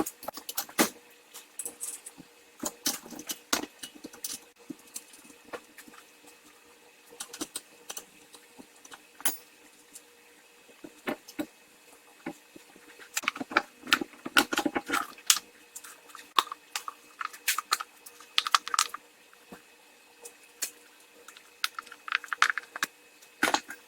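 Irregular metal clicks, clinks and knocks of a wrench, hex key and strut parts as the top-mount nut is undone and a front shock absorber strut, its spring held by compressors in a vise, is taken apart. A few clinks ring briefly.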